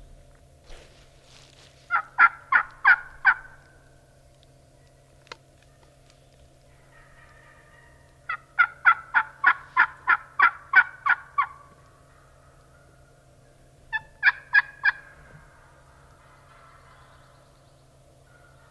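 Turkey yelping in three runs: about five sharp yelps, then a longer run of about a dozen, then four, each note evenly spaced and loud.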